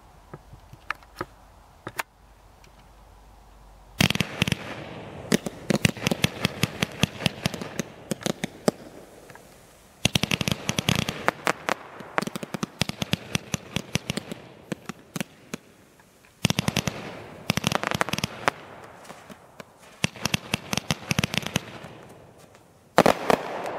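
A 75-shot, 500-gram firework repeater cake firing. After a few faint pops, it goes off about four seconds in with rapid volleys of launching and bursting shots. Short lulls separate the volleys, and a last loud volley comes near the end.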